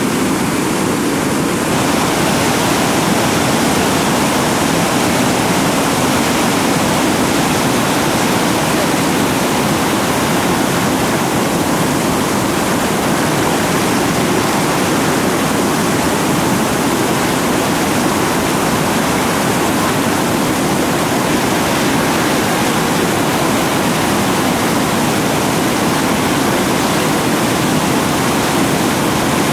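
Whitewater rapid rushing steadily: a loud, even wash of churning water at a big river drop.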